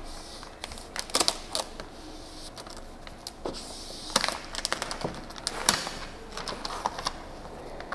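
Vinyl car-wrap film crackling and ticking irregularly as it is stretched and pressed onto the car's body panel by hand.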